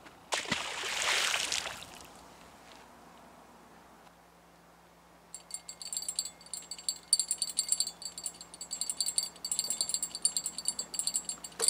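A catfish thrown back hits the canal water with a splash about half a second in. From about five seconds in, a light, rapid metallic jingling, like small bells or chimes.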